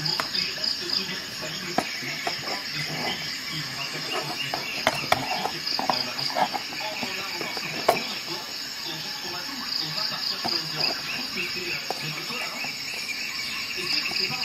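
A few sharp clicks from handling a digital caliper, its jaws being slid and its buttons worked, over a steady, high, pulsing chirr like insects, with faint talk in the background.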